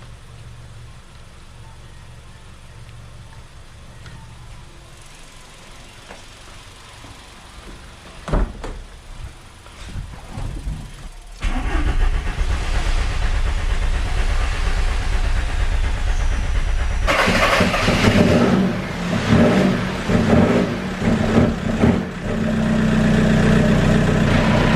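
Volkswagen Polo TDI diesel engine running after its injectors were refitted, faint and steady at first. A sudden knock comes about eight seconds in, and from about eleven seconds in the engine is much louder and steady.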